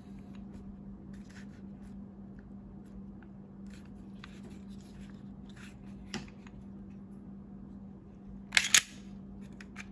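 Small metal-on-polymer clicks and scrapes of a Smith & Wesson M&P9 2.0 Compact pistol being field-stripped by hand, its slide worked forward off the frame. A louder clacking rattle comes near the end, over a steady low hum.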